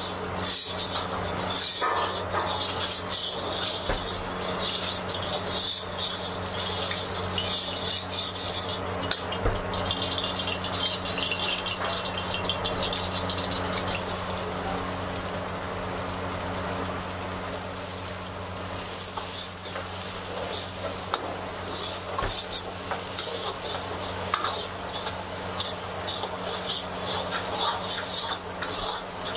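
Vegetables stir-frying in hot oil in a wok: a steady sizzle with the metal ladle scraping and clinking against the pan, over a low steady hum. About halfway through the sizzle thickens as sliced onions go into the oil.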